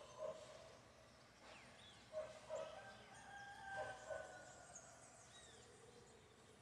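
Faint outdoor bird calls: several short, low calls, some in pairs, mixed with higher chirps and a longer falling whistle from small birds.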